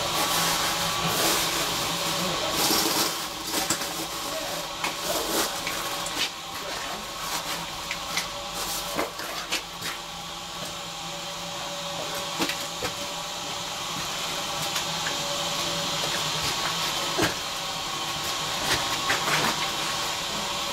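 GWR Hall class steam locomotive standing in steam over the pit, giving a steady hiss, with scattered light metallic knocks and clicks from work on its underside.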